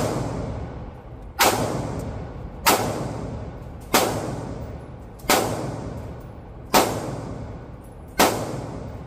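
Gunshots fired one at a time, six shots evenly spaced about 1.3 seconds apart, each sharp report followed by a long echoing decay inside an indoor shooting range.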